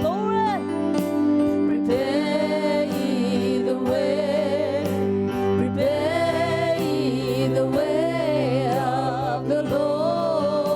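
Gospel worship music: a sung melody with vibrato over sustained instrumental chords.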